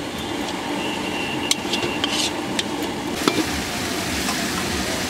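Tomato and ground-spice masala sizzling in oil in a large metal kadai while a spatula stirs it, scraping and knocking sharply against the pan a few times.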